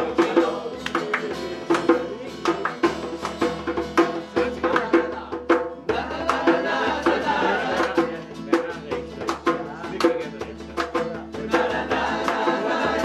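Live acoustic jam: acoustic guitars strummed and a hand drum beaten in a quick rhythm while several men sing together.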